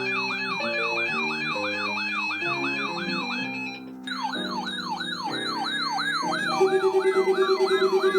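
Music with a siren-like yelp sweeping up and down about three times a second over a melody. The music drops out briefly a little under four seconds in. Near the end a fast-pulsing low tone comes in and is the loudest thing.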